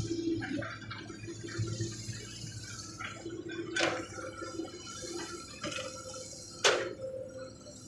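Hydraulic excavator's diesel engine running with a steady hum, with a few sharp knocks from the working machine, the loudest about two-thirds of the way in.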